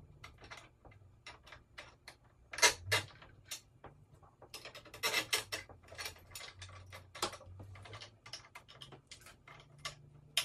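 Irregular light metallic clicks and taps as bolts are handled and turned in by hand on a wooden drum carder's brush mount, with a few sharper clicks about three and five seconds in.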